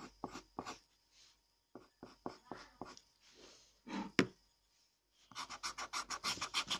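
Pencil scratching on paper while shading in a drawing: short separate strokes, then a fast, even run of strokes about six or seven a second from about five seconds in.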